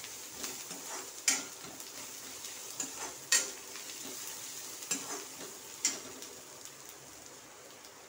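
Onions and ginger-garlic paste frying in mustard oil in a metal kadhai, sizzling, as a steel spoon stirs them and scrapes the pan with about half a dozen sharp strokes. The sizzle grows quieter near the end.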